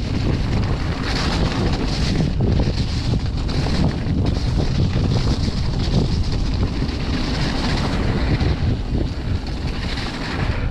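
Wind buffeting the microphone of a camera riding on a mountain bike, mixed with the rumble of the bike's tyres over a muddy, snowy trail.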